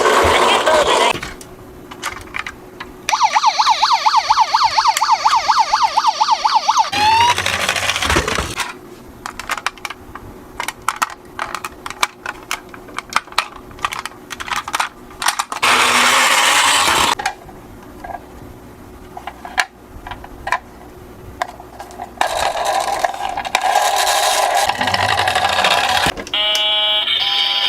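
Toy emergency siren sounding in a fast, repeating warble for about four seconds, ending in a rising glide. Then comes a long run of small scattered clicks and rattles, broken by a couple of louder hissy bursts.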